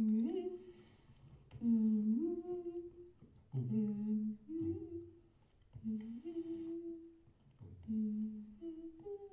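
Humming in five short repeated phrases about two seconds apart, each a lower note sliding up to a higher held one, as part of a contemporary vocal piece.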